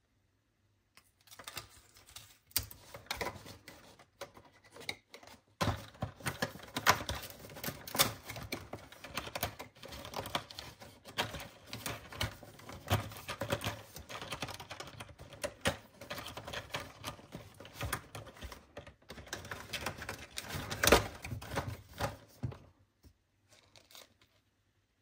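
Fingers tapping, scratching and tearing at the cardboard doors and clear plastic insert of a jewellery advent calendar: a dense run of irregular clicks, crackles and rustles, with a brief pause about five seconds in, stopping shortly before the end.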